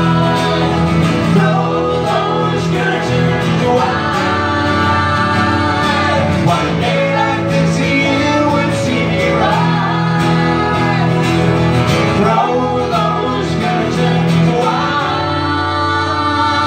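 Live acoustic pub music: acoustic guitars strummed steadily while male voices sing long held notes through a PA.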